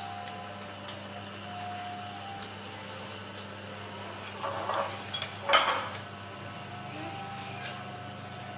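Small clicks and knocks of food and dishes being handled at a table, with a louder short rustling burst about five and a half seconds in, over a steady low hum.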